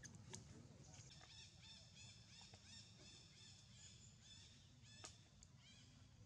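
Faint animal chirping: a quick run of short, high chirps, about three a second, fading out after about four seconds, with a couple of sharp clicks.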